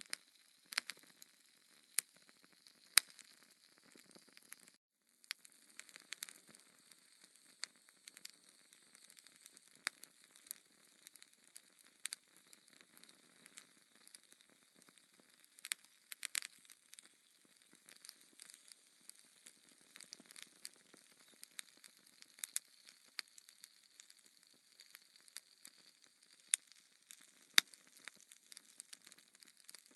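Log fire crackling: irregular sharp pops and snaps of burning wood over a faint hiss.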